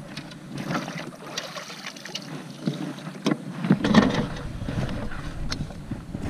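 Scattered knocks, taps and rustles of handling in a plastic fishing kayak, loudest in a cluster about four seconds in.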